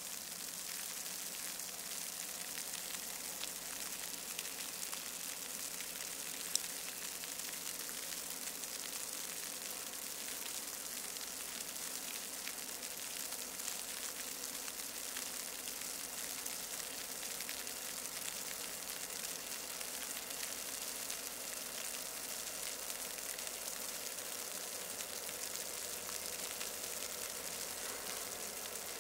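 Steady, even high hiss of a quiet snowy night, with no engine sound yet, and a single sharp click about six and a half seconds in.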